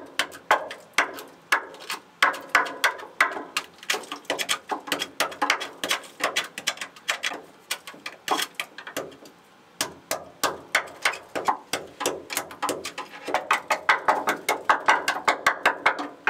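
Rapid, irregular metal-on-metal knocks, several a second, of a hand chisel chipping rust scale off the steel hull framing of a steel sailboat, pausing briefly about nine seconds in.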